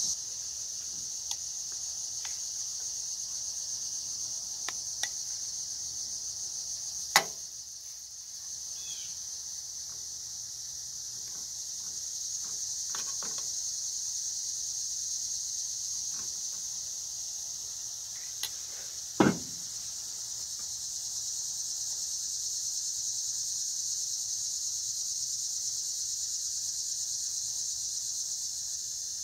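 A steady high-pitched chorus of insects in the background, with scattered light clinks of metal utensils and cookware. Two louder sharp clanks stand out, about seven and nineteen seconds in, as the skillet and batter are handled.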